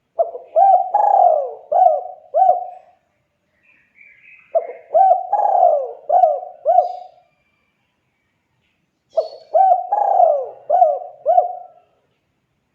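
Spotted dove (tekukur) cooing: three phrases of about five low, rounded notes each, a few seconds apart.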